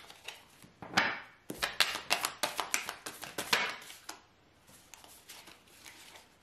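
A deck of fortune-telling cards being shuffled by hand: a quick run of sharp taps and flicks, fading to faint scattered ticks after about four seconds.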